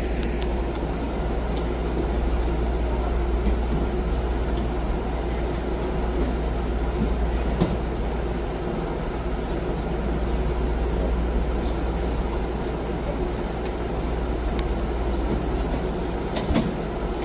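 A steady low rumble of room noise, with a few short knocks and scuffs from grappling partners drilling on mats.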